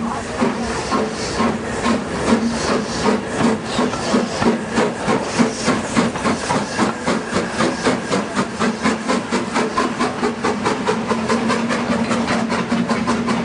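Steam locomotive pulling away, its exhaust chuffs quickening from about two a second to five or more a second as it gathers speed, over a steady low tone.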